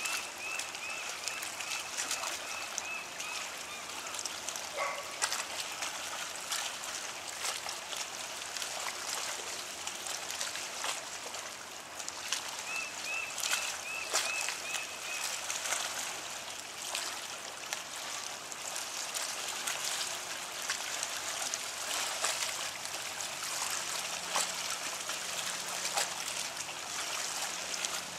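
Seawater trickling and lapping among barnacle-covered shoreline rocks, a steady crackly hiss with many small clicks. Twice a short run of high, evenly spaced chirps sounds over it: near the start and about halfway through.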